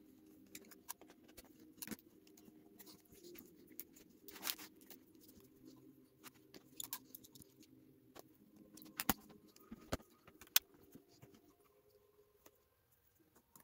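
Scattered small clicks and taps of laptop parts being handled while a ThinkPad's internal battery is taken out and a replacement fitted, over a faint steady hum.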